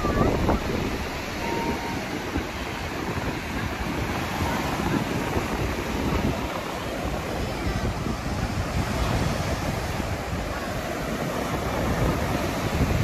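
Sea waves breaking and washing up on a sandy beach, a steady surf noise, with wind buffeting the microphone in a low rumble.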